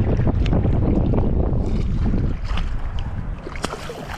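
Wind buffeting the microphone over choppy water lapping and splashing close by. The wind eases a little over two seconds in, leaving small splashes and drips.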